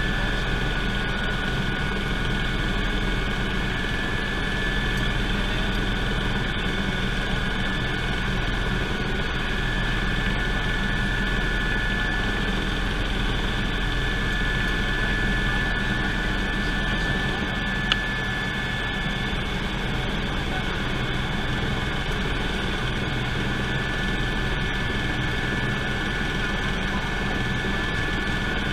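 Steady in-cabin noise of a Eurocopter EC120 Colibri helicopter in flight: the Turbomeca Arrius turboshaft's high whine over the low, constant rumble of the main rotor. A single sharp click sounds about eighteen seconds in.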